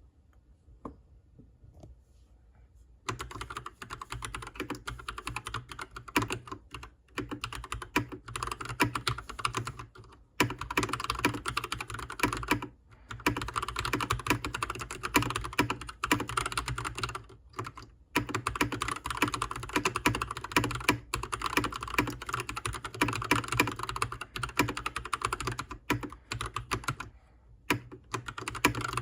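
Typing on a Keychron C2 Pro full-size mechanical keyboard with tactile brown switches: rapid, continuous key clacks that start about three seconds in, with several brief pauses.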